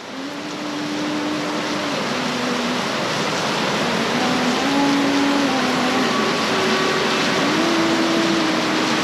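Steady heavy rain, fading in over the first couple of seconds, with a slow tune of long held notes stepping up and down in pitch over it.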